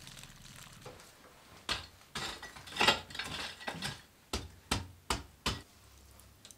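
A long-handled poker raking glowing embers inside a wood-fired masonry oven: a run of scrapes and knocks against the oven floor, ending in four sharp knocks in quick succession.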